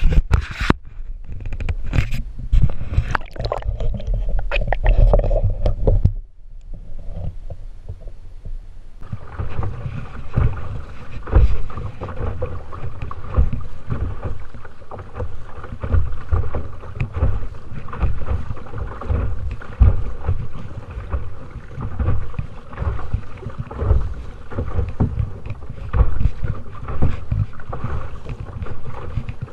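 Water sloshing and splashing against a kayak's hull as it moves through choppy river water, surging every second or two. The first six seconds hold heavier low rumble and sharp knocks, and it drops quieter for a few seconds before the splashing sets in.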